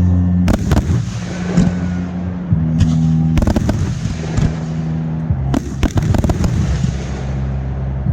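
Fireworks going off: a string of sharp bangs and crackle, with the loudest clusters about half a second, three and a half and five and a half seconds in. Under them runs music with deep held bass notes that shift every second or two.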